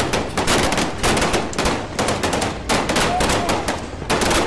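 Bursts of rapid automatic gunfire, many shots a second, in short volleys that follow one another with brief gaps.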